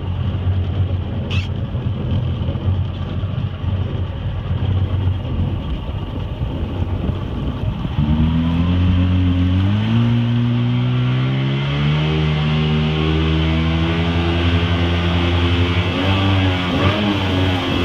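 Small boat's motor running under way over a steady rush of noise. About eight seconds in it gets louder and its pitch steps up as it speeds up, then holds steady.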